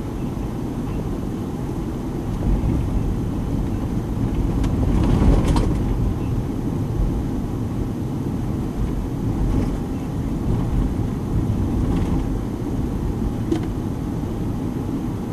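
Engine running steadily, a low drone that swells louder about five seconds in, with a few faint clicks over it.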